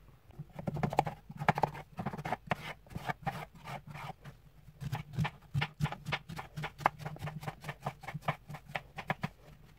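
Kitchen knife cutting peeled courgette on a plastic cutting board: a quick, uneven run of knocks as the blade strikes the board, several a second.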